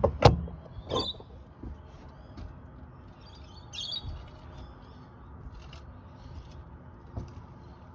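Two or three knocks from a phone camera being set down and steadied, then faint birds chirping in the background, most clearly about four seconds in.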